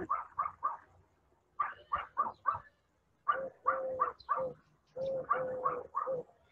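A dog barking in quick runs of several short barks, with brief pauses between the runs.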